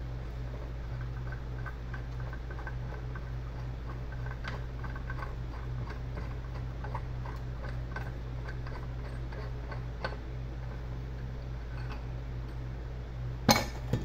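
Small, irregular light metallic ticks as fingers work parts on a wheel hub assembly, over a steady low hum, then one sharp clank about a second before the end.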